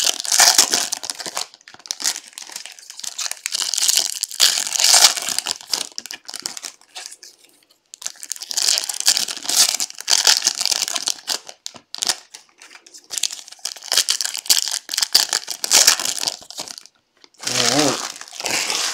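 Foil wrappers of 2021 Bowman's Best baseball card packs being torn open and crinkled by hand, in bursts of rustling with short pauses between.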